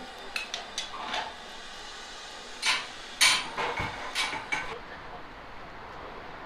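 Clattering metal knocks and clinks from bakery work: a quick run of light knocks in the first second, then several louder, sharper ones around three to four and a half seconds in.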